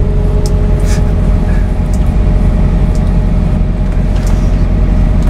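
Vintage Volkswagen bus's air-cooled flat-four engine running, heard from inside the cabin as a steady low drone, with a few light clicks and rattles here and there.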